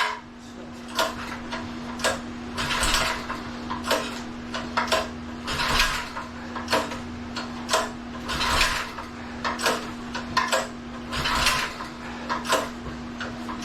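Hand ratchet being worked in short, irregular strokes, about one a second, over a steady low hum.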